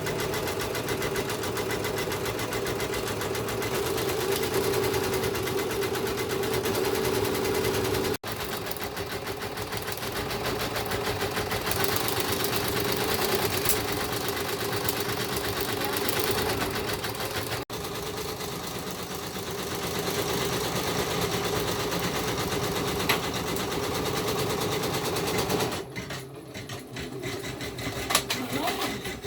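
Electric sewing machine stitching at a fast, even rate, with two abrupt breaks about eight and eighteen seconds in; it turns quieter and uneven near the end.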